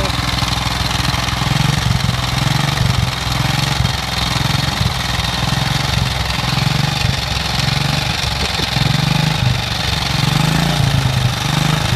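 1949 Ariel Red Hunter's single-cylinder engine idling steadily, its speed rising and falling slightly.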